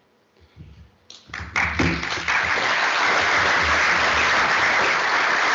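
Audience applauding, starting about a second in and quickly filling out into steady, even clapping.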